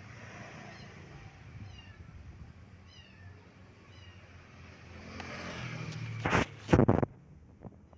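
Tabby kittens mewing: several short, high-pitched, falling mews spread over a few seconds, then two loud, short, noisy bursts near the end.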